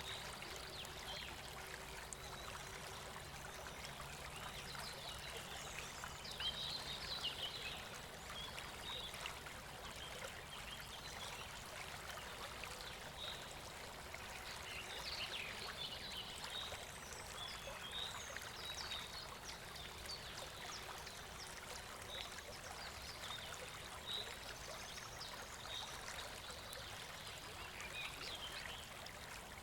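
River water rushing steadily, with birds chirping in short calls throughout.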